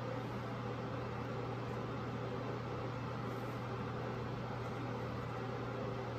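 Exhaust fan running steadily for solder fumes: an even rush of air with a constant low hum under it.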